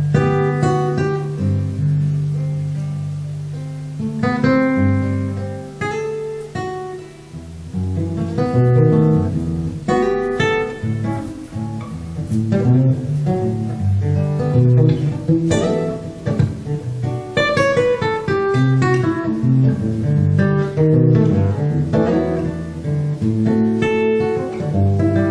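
Solo nylon-string classical guitar playing an instrumental passage of plucked chords and single-note lines, with a falling run about two-thirds of the way through.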